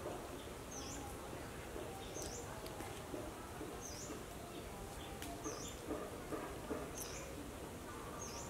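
A bird repeating one short, high chirp about every second and a half, over a steady background hiss.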